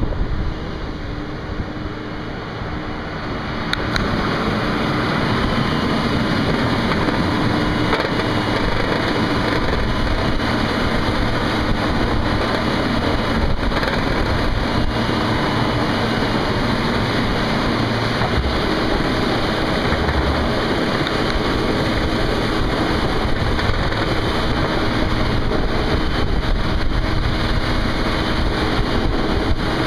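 Plow truck driving with its Fisher plow and Pro-Tech pusher box pushing slush across wet pavement: a steady engine hum under a loud, even rushing noise of slush and wind, getting louder about four seconds in and staying so.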